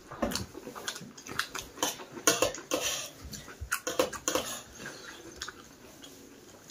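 Mukbang eating sounds: chewing and lip smacks, with fingers mixing rice and scraping it across a steel plate. Quick clicks and smacks come thickly for about four and a half seconds, then thin out.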